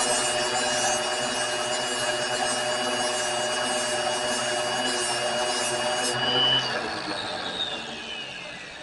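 Electric grinder grinding steel while finishing a forged flatter, a steady hiss over the motor's whine. About six seconds in the grinding stops, and after a moment the motor's whine falls steadily in pitch as it spins down.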